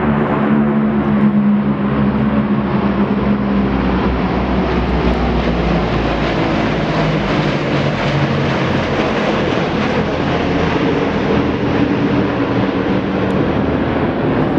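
Military aircraft flying low overhead, their engines making a loud, continuous drone. A steady low hum is strongest in the first few seconds, then the noise grows brighter as the aircraft pass and eases slightly near the end.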